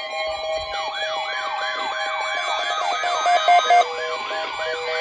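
Electronic siren-like alert tone, yelping rapidly up and down in pitch about three times a second, over steady held electronic notes.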